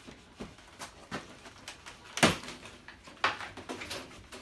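Knocks, scrapes and rustling from handling and opening a large cardboard shipping carton, with one louder thump a little over two seconds in.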